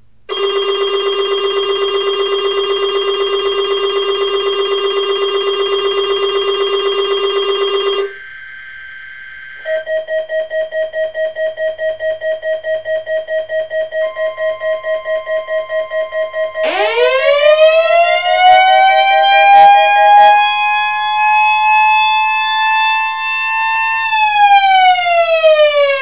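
Weather alert radios sounding their test alarms one after another. First comes a loud buzzing alarm tone for about eight seconds, then a rapidly pulsing beep with a steady higher tone joining it. From about two-thirds of the way in, an electronic siren winds up in a rising wail, holds, and winds down near the end.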